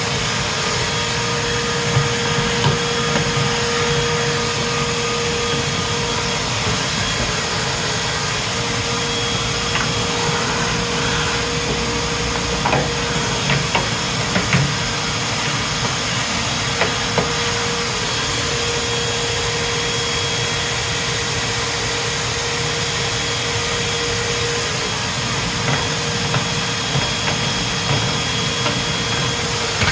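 Vacuum cleaner running steadily with a brush attachment, sucking dust from around a refrigerator's condenser coils and lines, with the nozzle knocking and scraping against the parts now and then.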